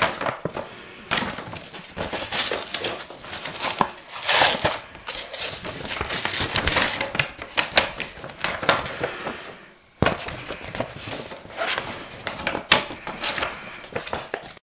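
A sheet of paper folded back and forth by hand, rustling and crinkling in irregular strokes, as flash powder is mixed inside the fold. There is a short pause just before ten seconds in, then the rustling starts again abruptly.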